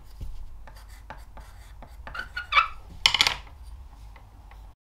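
Light scratching and ticking of a pencil and fingers on an unglazed ceramic test tile, then a brief clatter as the tile is handled over a metal-topped digital scale about three seconds in.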